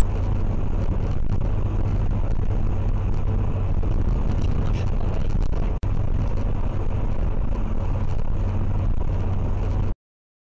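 Steady low engine and road rumble heard inside a moving vehicle's cabin. It drops out for an instant about six seconds in and cuts off abruptly near the end.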